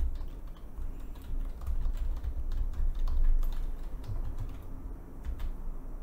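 Computer keyboard typing: a run of quick, irregular key clicks.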